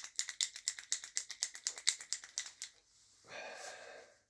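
White paint marker being shaken, its mixing ball rattling inside in a fast, even run of about seven clicks a second, to loosen paint that may have dried up from long disuse. The rattling stops a little before three seconds in and a short, softer rustling sound follows.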